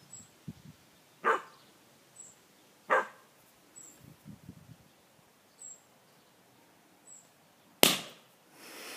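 A 12-week-old Newfoundland puppy gives two short barks about a second and a half apart. Near the end a rubber balloon pops with one sharp, loud crack.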